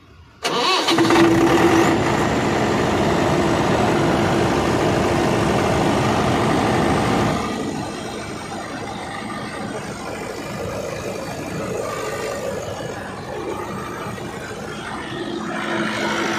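Kirloskar diesel engine of a Jakson Power generator set starting suddenly about half a second in and then running steadily. It is loudest for about seven seconds, then runs on somewhat quieter.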